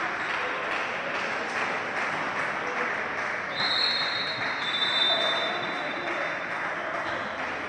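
Indoor basketball hall crowd noise: a steady murmur of spectators' and players' voices. About halfway through, a high steady tone sounds for about three seconds, dropping slightly in pitch partway.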